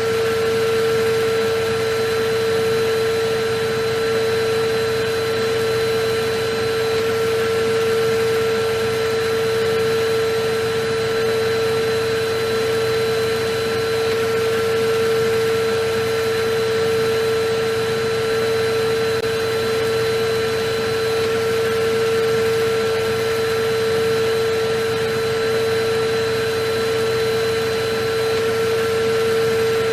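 Electric vacuum cleaner running steadily: a constant motor whine over an even rushing of air.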